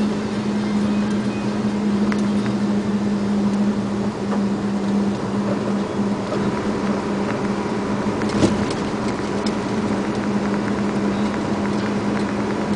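A truck's engine and tyre noise drone steadily inside the cab as it cruises along the road. There is one sharp knock a little past the middle.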